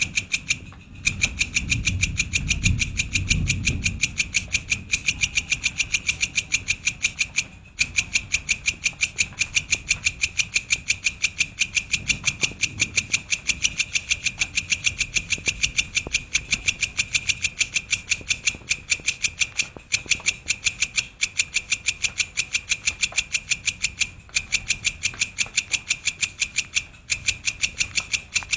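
Songbird calls used as a masteran tutor recording: one sharp high note repeated rapidly and evenly, about six times a second, in long runs with a few brief breaks. A low rumble sits under the calls for a couple of seconds near the start.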